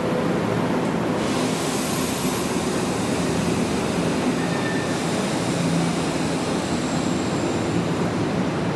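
An electric commuter train running past the station: a steady rush of noise that brightens about a second in, with faint high wheel squeals coming and going.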